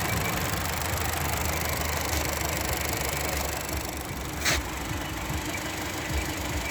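Seventh-generation Volkswagen Jetta engine idling steadily, with a faint, high, steady whistle over the running. A single sharp click comes about four and a half seconds in.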